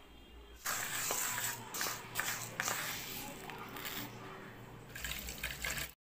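Water running and splashing into a bowl of small tapioca pearls to rinse them, with a few sharper splashes. It cuts off abruptly near the end.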